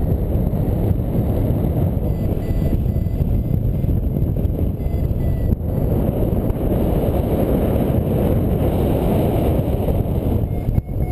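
Heavy wind noise buffeting the microphone of a paraglider's onboard camera in flight. Faint short beeps repeat at about three a second underneath, the tone of an audio variometer signalling a climb.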